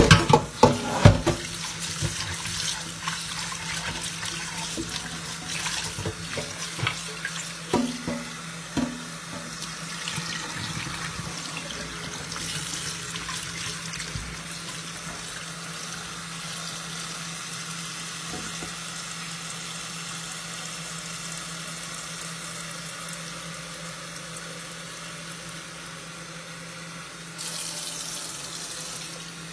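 Kitchen tap running into a steel pot as raw chicken pieces are rinsed by hand, with a few knocks against the pot in the first couple of seconds and again around six to nine seconds in. The stream of water gets brighter near the end.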